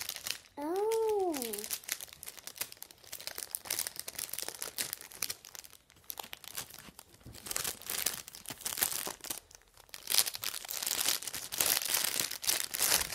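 Clear plastic bag crinkling in irregular crackles as fluffy socks are handled and pushed in and out of it. Near the start there is one short voice sound that rises and falls in pitch.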